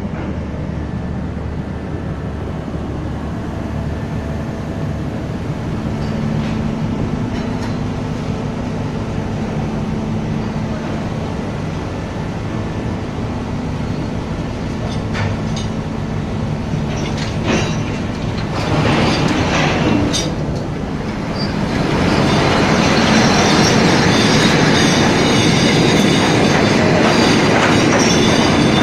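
Steady rumble of a fishing trawler's machinery with a low hum. A few knocks come about two-thirds of the way through, and the sound turns louder and hissier for the last quarter.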